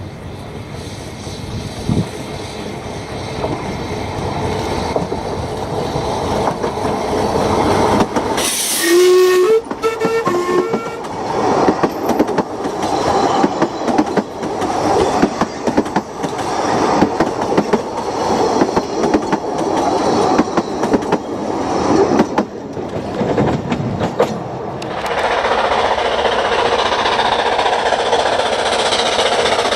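Narrow-gauge steam train approaching and running past, sounding its whistle in a few short notes about nine seconds in, followed by loud uneven clatter as it goes by, then a steadier rolling noise near the end.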